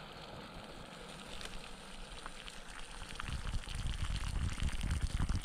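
Water in a small pot heating toward a boil on a backpacking alcohol stove: a steady bubbling hiss with fine crackles. A low rumble joins about three seconds in and grows louder.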